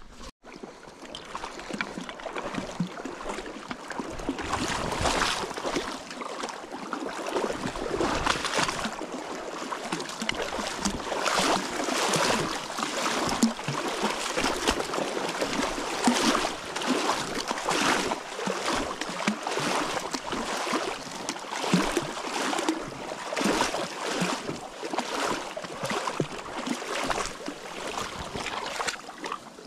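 River water rushing and splashing, in uneven surges with no steady rhythm.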